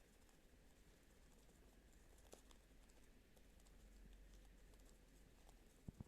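Near silence, broken by a few faint, scattered light clicks and taps, with a couple of soft knocks near the end.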